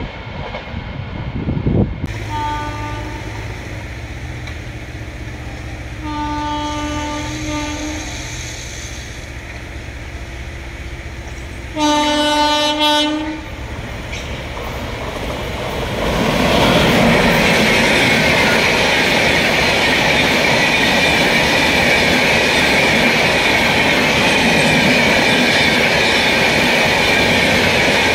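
An Indian Railways electric locomotive's horn sounds three times as a passenger train approaches, the third blast the loudest. A bit over halfway in, the train reaches the camera and its coaches pass close by with a steady rumble and clickety-clack of wheels on rail joints.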